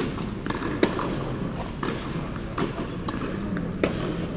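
Tennis balls knocking on an indoor hard court and off rackets: scattered sharp knocks, the loudest about a second in and another near the end, over a steady low hum.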